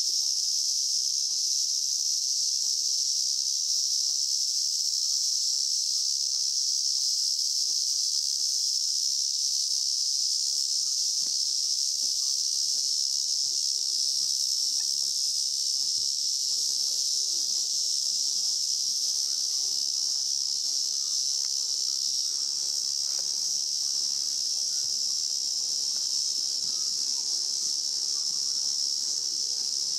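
Chorus of cicadas: a steady, unbroken high-pitched buzz.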